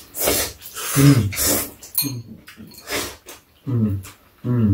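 Close-up eating sounds: glass noodles (japchae) being slurped and chewed in a series of short noisy sucks, with a few short voiced hums in between.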